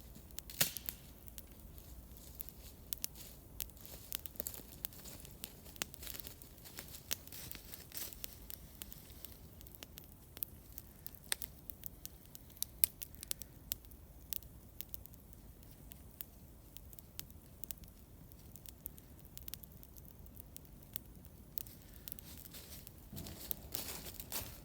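Wood campfire crackling, with irregular sharp snaps and pops over a faint hiss. A short rustle comes near the end.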